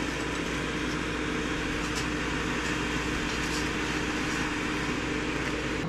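Air fryer's fan running with a steady hum and a low steady tone. A couple of faint taps come as cooked tapioca cubes are tipped from the basket onto a plate.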